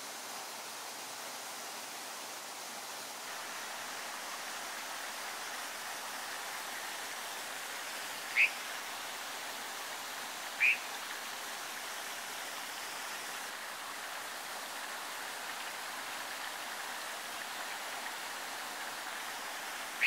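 Steady rush of a flowing stream, with two short, sharp bird chirps rising in pitch past the middle, about two seconds apart.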